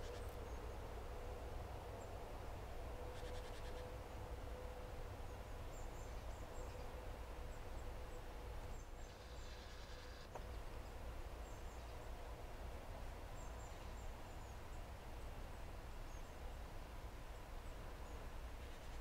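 Faint woodland ambience: a steady low rumble and faint hum, with scattered faint, very high chirps like small birds calling.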